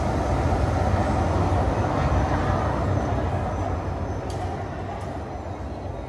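Indoor waterfall's steady rushing and rumbling noise, deep and even, fading out over the last few seconds.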